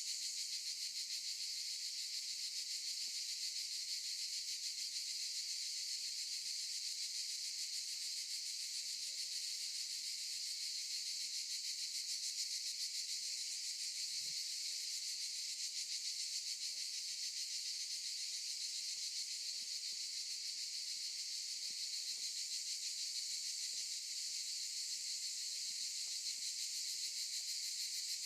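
Cicadas singing in a dense chorus: a continuous high-pitched buzz with a fine rapid pulse, holding steady throughout.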